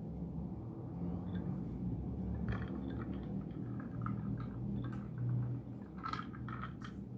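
A person drinking from a glass of water with lemon: wet mouth and swallowing sounds with short clicks of the glass, a cluster of them near the end, over a steady low hum.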